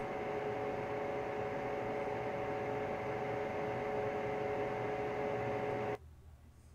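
A steady droning hum with hissing static and a few held tones, the eerie ambience of an analog-horror soundtrack. It cuts off suddenly about six seconds in.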